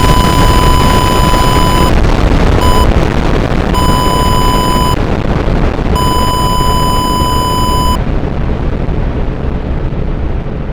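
Loud, continuous blast-like rumbling noise under a steady high beep tone. The beep cuts out and comes back several times and stops about eight seconds in. After that the rumble turns duller and slowly fades, as in a simulated nuclear detonation breaking into an emergency broadcast signal.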